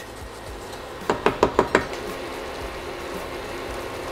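A wooden spoon knocking against a stainless-steel pan about six times in quick succession, about a second in.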